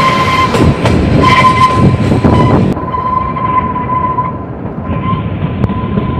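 Kalka–Shimla narrow-gauge toy train running on the rails, with rumbling, clattering wheels and a steady high tone held throughout.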